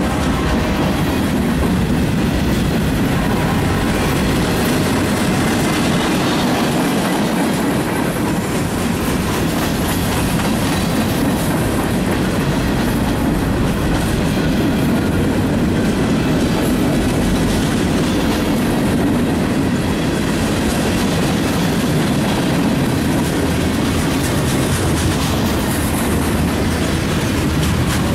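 Freight train cars rolling past close by: a loud, steady rumble of steel wheels on the rails that holds even throughout.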